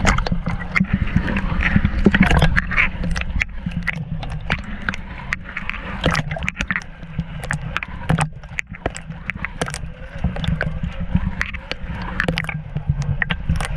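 Water sloshing and slapping against a floating dome camera housing bobbing on the pool, heard as a dense run of small knocks and clicks over a low rumble.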